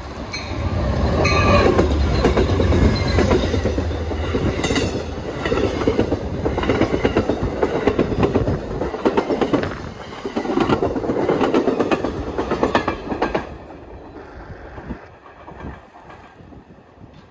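Amtrak passenger train passing at speed: the diesel locomotive's heavy low rumble goes by in the first few seconds, then the passenger cars rush past with a steady clickety-clack of wheels over the rails. The sound fades quickly near the end as the last car moves away.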